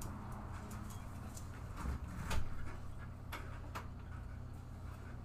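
Faint chewing and small mouth clicks as someone eats a snack, a few short clicks scattered through, over a steady low hum.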